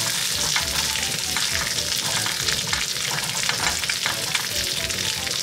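A yellowtail fillet is frying in oil in a non-stick Scanpan frying pan with a steady, crackling sizzle. Kitchen paper held in chopsticks rubs through the pan as the rendered fat is wiped away.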